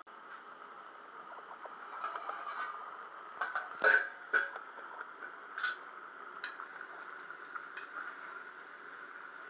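Sharp metal clanks and scrapes of a slotted spoon and lid against a metal cooking pot, a quick cluster about four seconds in and then a few single knocks, over a steady hiss.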